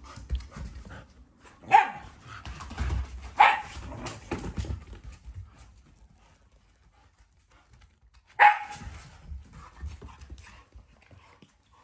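A dog barks sharply three times: two barks close together, then a third several seconds later, with quieter rustling between them.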